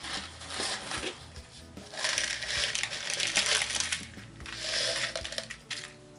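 Small seashells rattling and clattering as they are tipped out of a jar into a small dish, in three bursts, the longest and loudest in the middle.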